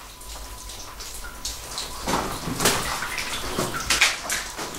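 Footsteps splashing and crunching on the wet gravel and ties of a mine-tunnel track, a handful of irregular steps starting about two seconds in.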